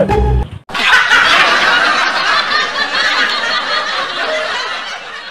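A short bit of music cuts off about half a second in. It gives way to a dubbed-in laugh track of a group of people laughing and snickering, which fades away near the end.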